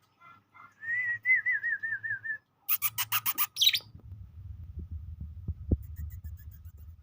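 Small songbird singing: a wavering whistled trill, then a quick burst of sharp high chirps about three seconds in. A low rumble with a couple of thumps follows.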